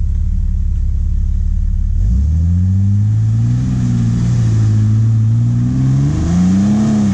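Jeep Wrangler engine running at low revs, then revving up about two seconds in and holding a steady drone, climbing higher again near the end before dropping off.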